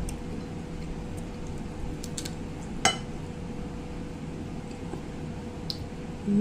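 A few light clicks and one sharper clink about three seconds in, from fingers handling cooked crab on a ceramic plate, over a steady low hum.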